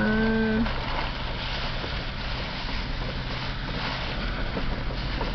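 Steady hiss of heavy rain heard from inside a car with its windows partly down, over a low steady hum. A short hummed 'mmm' opens it.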